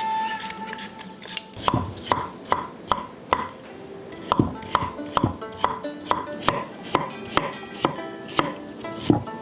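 Knife chopping on a cutting board in steady strokes, about two and a half a second, starting a second and a half in with a short pause near the middle. Quiet background music runs under it.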